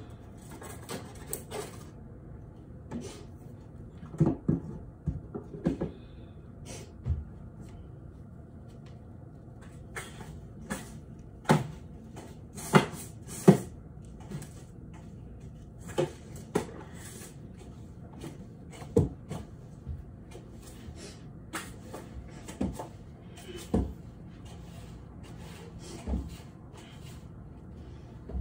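Irregular soft knocks and clicks, scattered one or two at a time, over a steady low hum.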